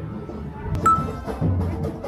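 Low background noise broken by a sharp click about a second in, after which a street carnival drum group takes over, with deep drum beats landing roughly every 0.8 seconds.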